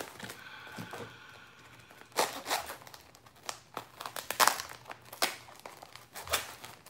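Paper-and-tape wrapping on a geode crinkling and tearing as it is cut and pulled open by hand. It rustles softly at first, then comes in irregular, sharp bursts from about two seconds in.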